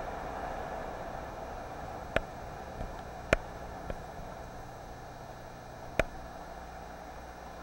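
Steady wash of sea water sloshing inside a sea cave around a kayak, with four sharp knocks spread through it.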